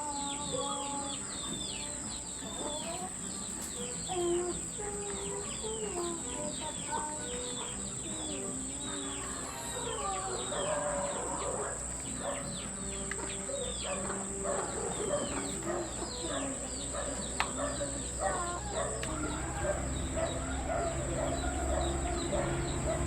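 Chickens clucking among many short, falling chirps of small birds, over a steady high-pitched whine.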